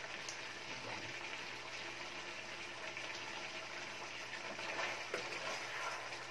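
Pork adobo sauce still bubbling and sizzling steadily in a hot stainless-steel skillet after the burner has been switched off, with a couple of light clicks of a serving spoon.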